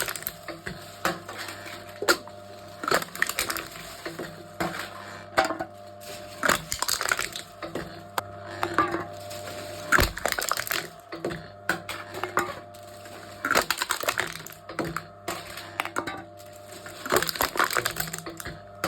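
Aluminium cans being crushed one after another in a can-crushing machine: repeated crunching and crackling of metal every second or two, over a steady hum.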